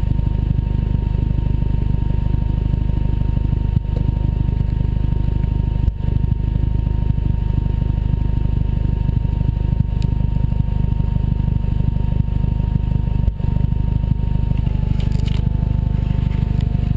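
Toyota 3S-GTE turbocharged four-cylinder engine running steadily, stumbling for a split second about three times. The owner takes these stumbles for a hiccup, not sure of the cause but suspecting the new spark plugs.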